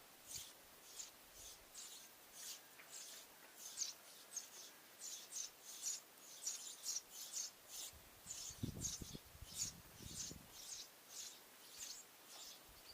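Sparrows chirping steadily, short high chirps repeating about two to three times a second, with a brief low rumble in the second half.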